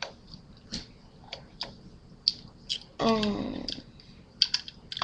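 Irregular light clicks and taps, about a dozen, with a brief voice sound about three seconds in.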